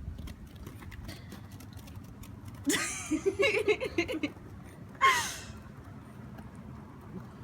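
A person laughing in a quick run of short bursts, then a single sharp, breathy gasp-like cry that falls in pitch.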